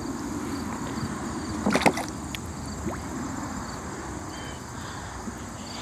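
Footsteps through shallow water over wet, slimy stone, sloshing and splashing, with one sharper step a little under two seconds in.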